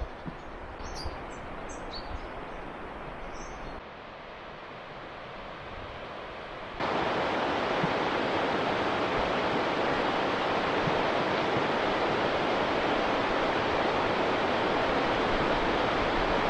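A fast-flowing river rushing: a loud, even noise that starts suddenly about seven seconds in. Before that, quieter open-air sound with a few short high chirps.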